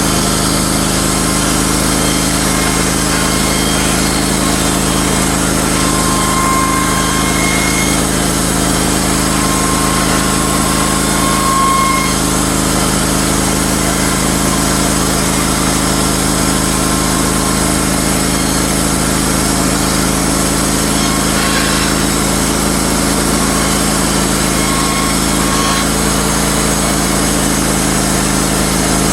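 Wood-Mizer LT15 Wide band sawmill running steadily while it resaws barnwood.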